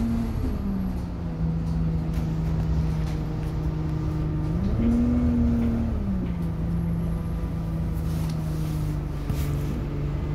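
Alexander Dennis Enviro200 single-deck bus driving, heard from inside the saloon: a steady engine and drivetrain drone over a low rumble. Its pitch drops about half a second in, climbs back near the middle, then drops again a second later, with a few light rattles.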